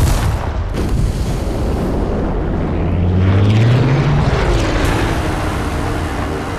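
Film air-raid sound mix: a sharp blast at the start, then a dense, steady roar in which a low engine-like tone rises about midway through and a higher tone glides downward near the end.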